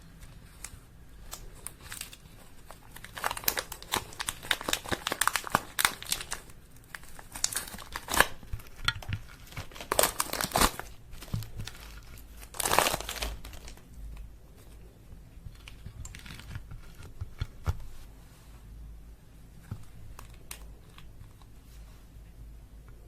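Slime mixed with makeup being worked by hand, crackling and popping in several bursts of dense little clicks, quieter and sparser in the last part.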